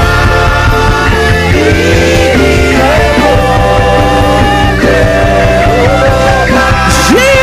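Live gospel worship band playing, with a steady pulsing bass beat under long held melodic lines.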